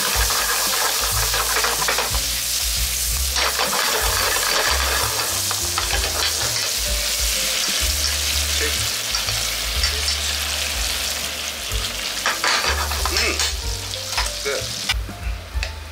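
Sake and miso sauce sizzling and bubbling in a frying pan around bacon and mushrooms, stirred with a metal spoon that clicks against the pan a few times near the end. The sizzle thins out just before the end.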